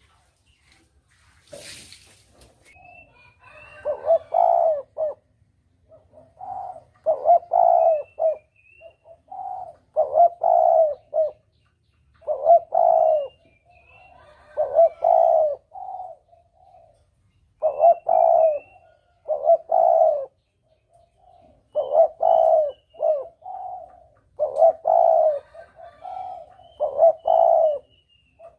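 Spotted dove (tekukur) cooing, a lure call: a phrase of several coo notes repeated every two to three seconds.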